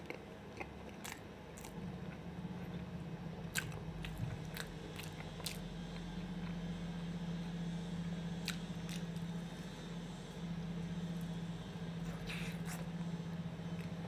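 Close-miked chewing of a mouthful of sausage, with small wet mouth clicks and smacks now and then, over a low steady hum.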